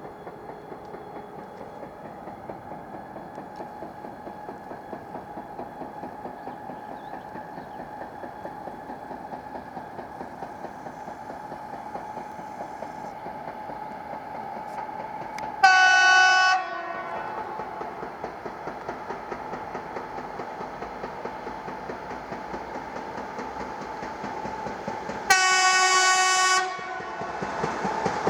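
An approaching passenger train hauled by an EP2K electric locomotive: a steady rhythmic knocking of wheels over the rail joints, growing slowly louder, and two loud horn blasts, the first about a second long and the second slightly longer, near the end.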